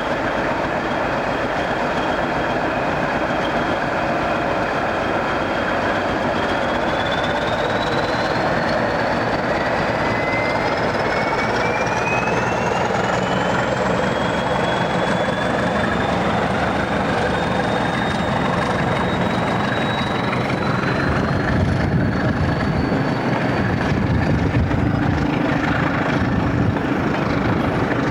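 Train running with a steady rush and rumble, and a whine that rises in pitch over several seconds as it gathers speed, then holds steady.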